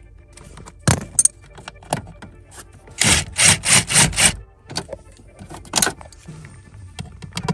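Hand tools clinking and knocking on metal parts, with a run of five or six quick rasping strokes about three seconds in, as the blower motor is fastened back into place.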